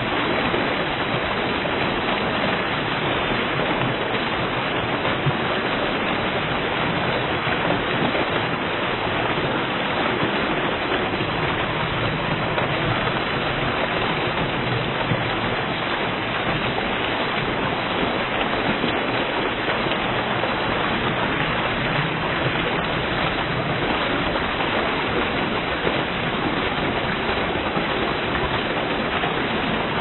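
A small river waterfall: water pouring over rock and churning into the pool below, a steady rushing.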